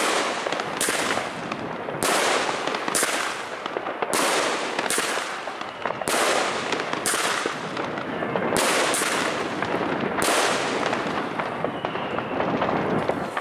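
Jorge 'Red Meteor' 7-shot, 26 mm consumer firework battery firing: a string of sharp bangs of shots launching and bursting, about one a second, with a rushing noise between them. The bangs end about ten seconds in as the battery finishes.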